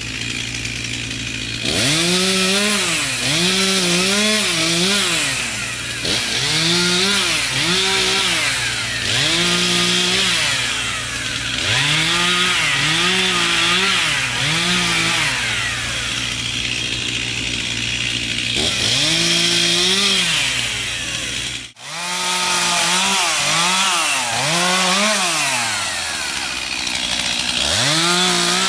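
Two-stroke chainsaw idling, then revved again and again in quick runs of two to four bursts, the pitch rising and falling with each, as it cuts through woody stems. A brief gap about three-quarters of the way through, then more revving.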